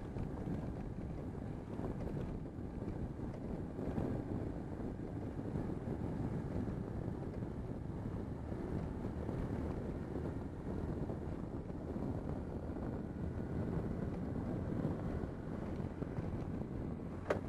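BMW R1150GS sidecar rig's boxer-twin engine running at a steady speed on a gravel road, with tyre rumble on gravel and wind buffeting the microphone. A single sharp knock comes near the end.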